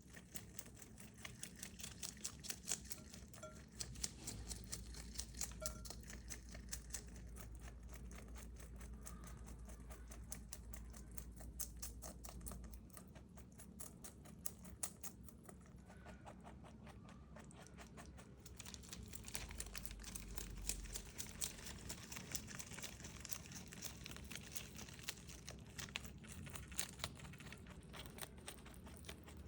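A rabbit chewing fresh bok choy: rapid, crisp crunching strokes with small leaf-tearing and crinkling sounds, going on without a break.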